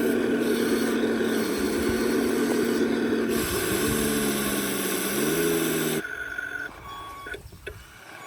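Radio-controlled construction model running, a steady motor whine over a noisy drone; from about four seconds in the pitch shifts up and down a few times as it works, and it stops abruptly about six seconds in.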